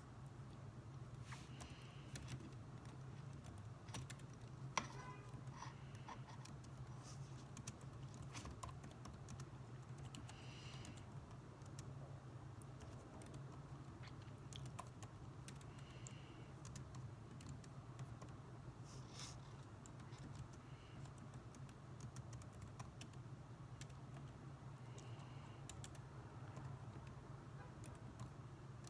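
Faint typing on a computer keyboard: irregular key clicks, one sharper click about five seconds in, over a steady low hum.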